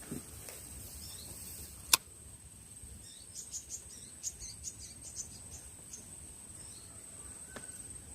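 Insects at the riverside: a steady high-pitched drone, with a run of short, quick high chirps in the middle. A single sharp click about two seconds in.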